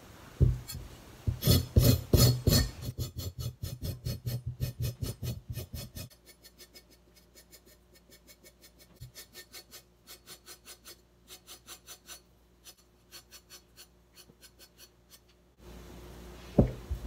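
Back of a kitchen knife scraping the skin off burdock root in quick repeated strokes, about three a second. The strokes turn much fainter about six seconds in.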